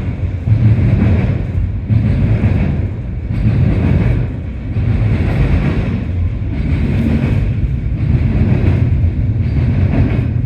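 CSX intermodal freight train's well cars rolling past, a loud, steady low rumble that swells and eases about every second and a half.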